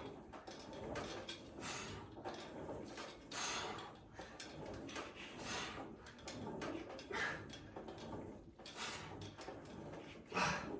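Home gym equipment being worked during a set: repeated sliding and clinking, one stroke about every one and a half to two seconds.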